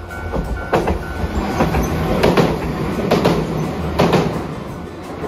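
Hiroden Green Mover APEX low-floor tram running over a steel girder bridge. Its wheels clatter over the rail joints, often in close pairs, over a steady rumble that swells in the middle and fades near the end.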